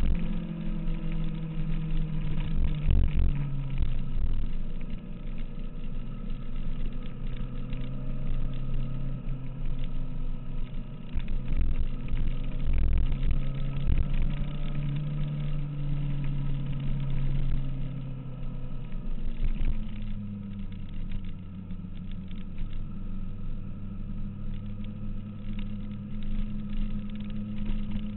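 2006 Kawasaki ZX-6R's inline-four engine running as the bike is ridden, with wind rumble over it. The engine note falls over the first few seconds, holds steady, and changes pitch again about twenty seconds in.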